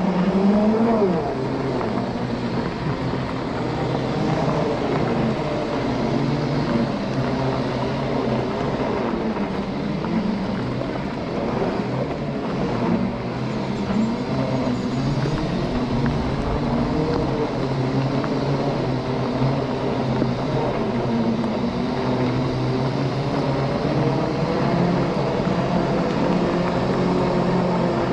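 Segway x2 off-road transporters' electric drive motors whining as they are ridden at speed in a race, the pitch rising and falling slowly with speed, over a steady rumble of wind on the microphone.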